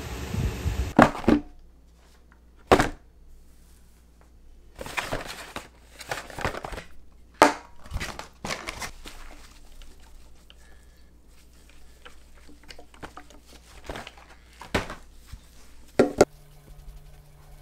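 Skincare packaging being handled on a hard tabletop: a cardboard box and a cream jar set down with scattered sharp knocks, with crinkling of packaging in between.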